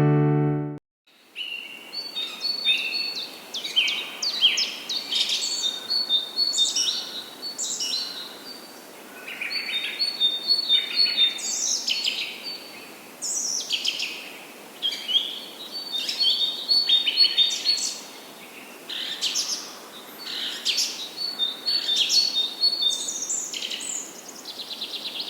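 Songbirds singing: several birds chirping and whistling in short phrases that come every second or two, over a faint background hiss.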